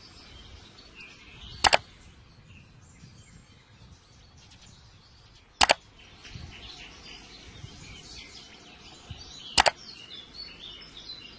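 Birds chirping, broken three times, about four seconds apart, by a sharp double crack that is far louder than the birdsong.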